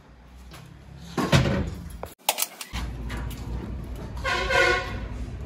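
Metal truck differential parts being handled on a workshop floor, with a loud clank a little over a second in. A vehicle horn honks briefly about four and a half seconds in.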